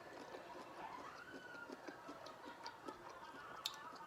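Soft clicks and smacks of eating seafood by hand, shrimp shells being peeled and chewed, with one sharper click a little after three and a half seconds in.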